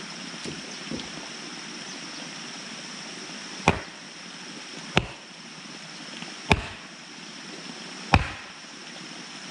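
Heavy wooden mallet striking the top of a wooden post to drive it into the muddy ground. There are two light taps near the start, then four hard blows about a second and a half apart.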